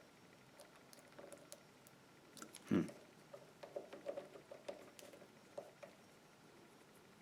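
Light metallic clicks and scrapes from a small YALE push padlock being worked by hand with picking tools, with one louder knock about three seconds in.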